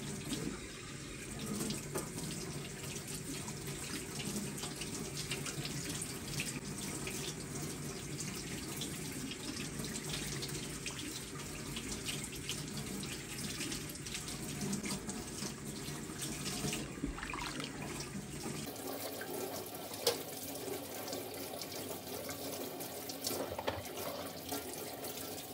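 Kitchen tap running into a sink while soaked dried meat (qadid) is rinsed by hand, with small splashes and clinks of pieces in the water.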